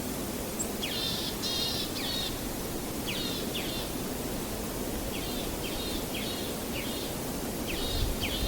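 A bird calling in groups of short notes, about a second in, around three seconds, from five to seven seconds and again near the end, over a steady low rush of waves.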